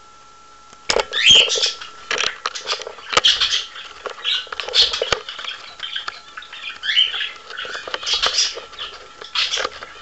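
Cockatiel close to the microphone, giving short rising chirps among bouts of scratching and rustling with sharp clicks, in irregular bursts starting about a second in. A faint steady electronic whine runs underneath.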